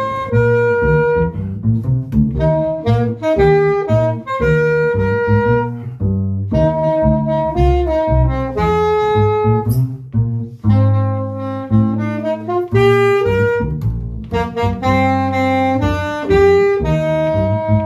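Instrumental music: an upright double bass playing low notes under a melody of short, changing notes.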